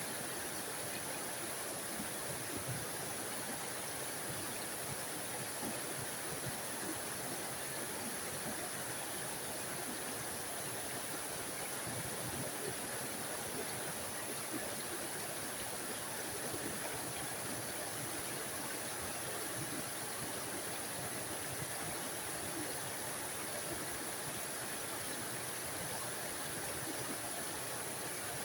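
Small forest waterfall splashing and rushing, a steady, even water noise with a bright hiss in the highs.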